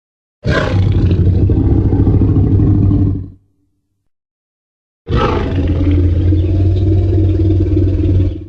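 Tyrannosaurus rex roar sound effect, played twice: two long, low roars of about three seconds each. Each starts suddenly and fades out, with a silent gap of about two seconds between them.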